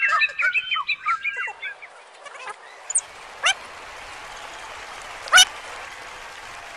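Animal-like calls: a quick flurry of chirping, gliding tones for the first second and a half, then a few short, sharply rising squeaky calls, the loudest about five seconds in, over a faint hiss.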